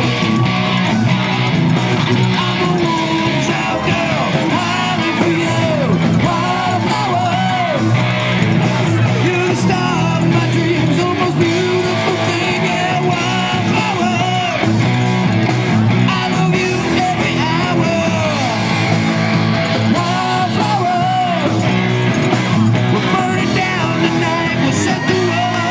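Live rock band playing: electric guitars over a steady bass, with a singer's voice on top.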